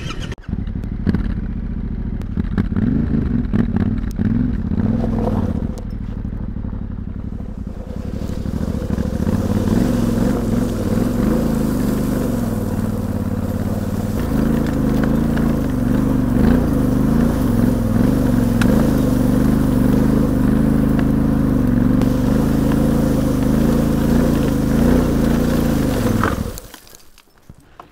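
Yamaha Ténéré 700's parallel-twin engine running at low revs in first gear as the motorcycle crawls through deep loose pebbles, with the tyres crunching and scraping over the stones. The engine sound stops abruptly about a second before the end.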